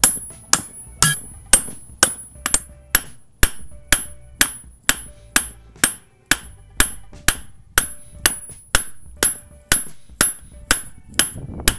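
Mallet blows striking a CV axle part to drive it back into place, a steady run of about two blows a second, each with a short metallic ring.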